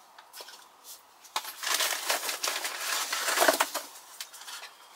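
A packet rustling and crinkling as it is handled and opened. It is a dense rustle for about two seconds, starting about a second and a half in, with lighter rustles and clicks around it.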